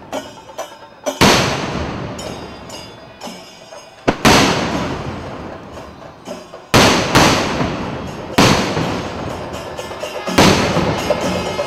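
Daytime aerial firework shells exploding: five loud blasts two to three seconds apart, each ringing and echoing away, with smaller cracks between them.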